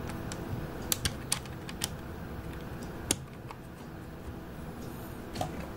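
Irregular sharp clicks and taps of hard plastic as the case of a Jumper T18 Pro RC transmitter is handled and worked on, about half a dozen in the first three seconds, then fewer and fainter.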